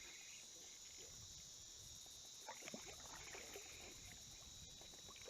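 Faint, steady, high-pitched chorus of cicadas, with a few small faint knocks around the middle.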